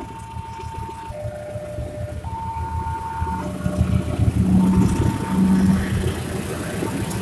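Railway level-crossing warning alarm sounding an electronic two-tone signal, alternating a higher and a lower note about once a second. From about halfway a low engine rumble grows louder as a train approaches.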